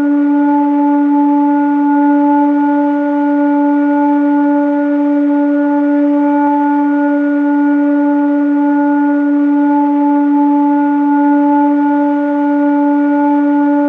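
Sound-healing frequency drone: one steady held tone with fainter overtones above it, unchanging throughout.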